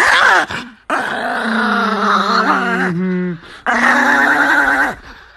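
Chihuahua growling and snarling in three sustained, fairly high-pitched bouts: a short one at the start, a long one of about two and a half seconds, then another of over a second, with short breaks between. It is a small dog's warning growl at a hand reaching toward its face.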